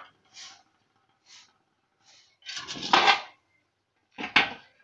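A large iron pan scraping and knocking against a brick floor as it is tipped over. There are a few short scrapes, a longer loud one about three seconds in, and a sharp clank near the end.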